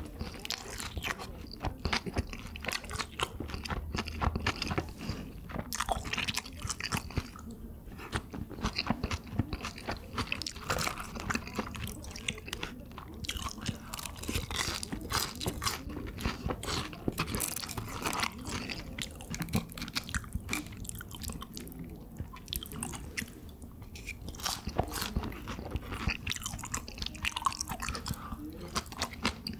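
A person eating: steady chewing with frequent crunchy bites, irregular and continuous, as black-bean noodles, fried pork and kimchi are chewed.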